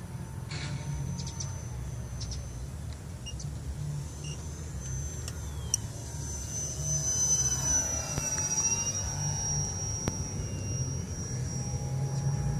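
Electric motor and propeller of an E-flite T-34 Mentor RC plane whining as it passes, its pitch bending down partway through, over a steady low rumble.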